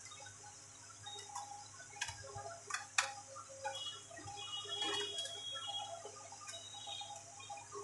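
Light, irregular plastic clicks and taps of a laptop keyboard being laid into the laptop's top case and pressed into place, with a sharper click about three seconds in and a cluster of small clicks around five seconds in.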